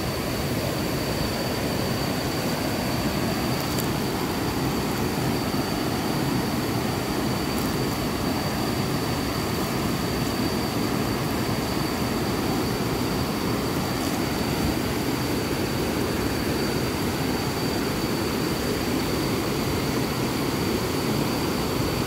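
A rain-swollen, muddy waterfall and its rapids rushing steadily. The fast, heavy flow comes from fresh rainwater running off the forest.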